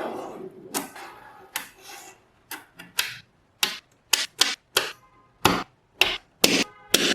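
Small magnetic steel balls clicking as they snap together: about a dozen sharp, irregular clicks, some with a short metallic ring, after a brief rattle at the start.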